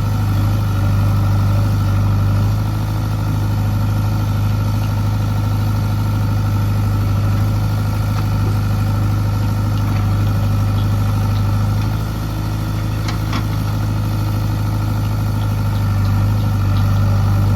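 A heavy diesel engine running steadily at low revs with a deep, even hum. A few light clicks come about two-thirds of the way through.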